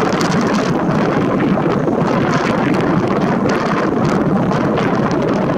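Wind blowing over the camera microphone: a steady rushing noise with irregular crackles.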